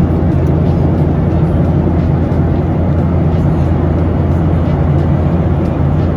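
Steady low rumble of a vehicle driving, heard from inside, with an even drone and no let-up.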